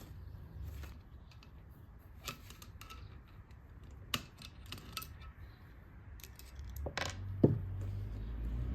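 Scattered light clicks and clinks of metal engine parts and tools being handled on a workbench, with a sharper knock about seven and a half seconds in. A low rumble comes in near the end.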